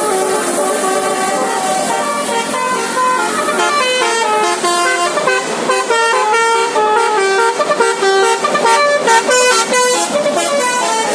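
A bus's telolet musical air horn, several trumpets sounding together, plays a tune of stepped notes in chords, the notes coming quicker in the second half.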